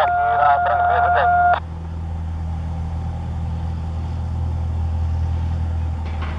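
A radio transmission with a steady whistle tone and garbled voice, which cuts off abruptly about a second and a half in, over a steady low drone that carries on to the end.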